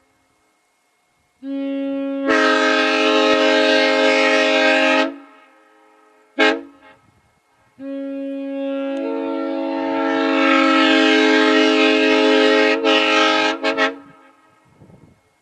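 Nathan M3 round-base three-chime locomotive air horn sounding its chord in three blasts: one of about four seconds that starts soft and then opens to full volume, a short toot, and a longer blast of about six seconds. The long blast swells as it opens up and ends in a few quick stutters.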